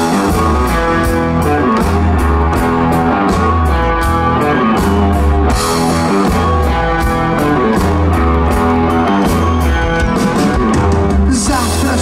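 Live rock band playing a song's instrumental intro: electric guitars, bass guitar and drum kit at a steady beat, with evenly spaced cymbal strokes over a repeating bass line.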